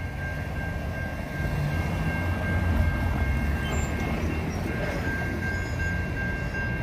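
Railroad grade-crossing warning bells ringing in steady high tones while the crossing gates lower for an approaching SunRail commuter train. Under the bells runs a low rumble from the train, louder from about a second in.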